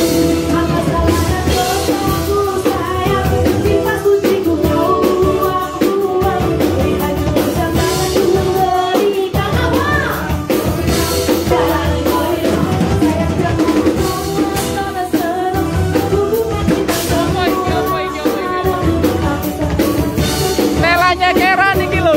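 Live dangdut koplo band playing with a singer: kendang hand drums and a drum kit driving a steady beat under keyboard and electric guitars, with a sung melody over it.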